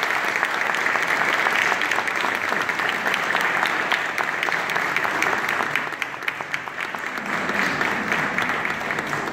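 Audience applauding, a dense patter of many hands clapping, a little softer over the last few seconds.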